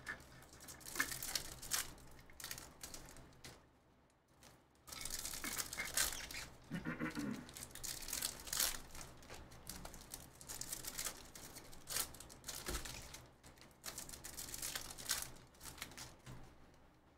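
Foil trading-card pack wrappers crinkling and tearing as packs are ripped open, with the cards rustling as they are handled and set down. The sound comes as a series of short, sharp rustles, with a brief lull about four seconds in.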